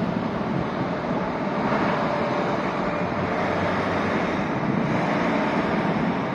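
Steady road traffic: cars and a truck passing, a continuous wash of tyre and engine noise.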